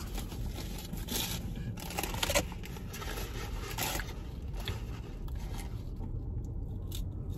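Paper and plastic fast-food wrappers rustling and crinkling in a few short bursts as food is handled, over a low steady hum inside the car.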